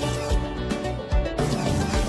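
Background music with held chords over a low beat.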